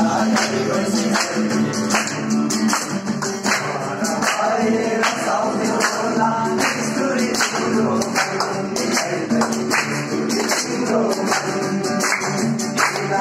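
A group of men singing a Deusi festival song together, accompanied by an acoustic guitar and a hand drum beating a steady rhythm.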